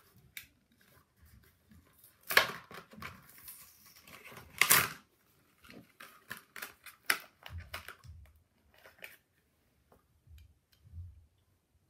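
Plastic blister pack and card backing of a die-cast toy car being torn and pried open: a run of crackling and tearing, loudest in two bursts about two and about four and a half seconds in, with a few soft knocks later.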